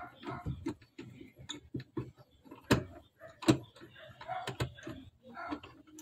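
A screwdriver working screws out of a TVS King three-wheeler's plastic dashboard panel: a run of small irregular clicks and scrapes, with two sharper knocks a little under a second apart near the middle.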